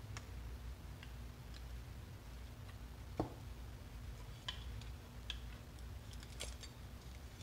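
Light clicks and taps of small hand work on a tracking collar's plastic battery housing, a small metal pick prying at the battery inside, with one sharper knock about three seconds in and a quick run of clicks near the end. A low steady hum lies underneath.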